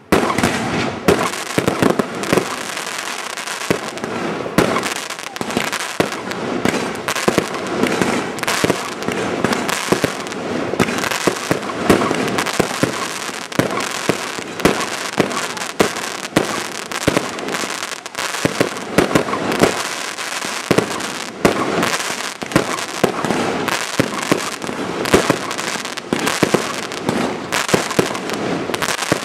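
Fireworks display: a dense, unbroken barrage of rapid pops and bangs from many shells and crackling stars bursting at once.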